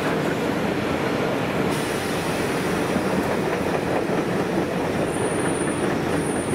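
Freight wagons loaded with tank containers rolling past, a steady rumble of wheels on rail. A thin, high wheel squeal comes in about two seconds in and is sharpest near the end.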